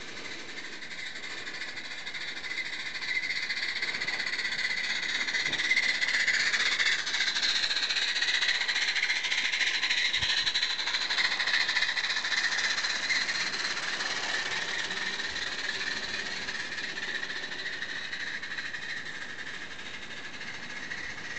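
Roundhouse 16 mm-scale live-steam narrow-gauge locomotive chuffing through its chuff pipe as it runs past, with a hissing exhaust. It grows louder to a peak about halfway through, then fades away.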